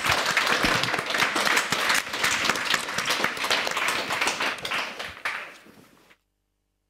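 Audience applause, many hands clapping at once, dying away near the end and then cutting off suddenly.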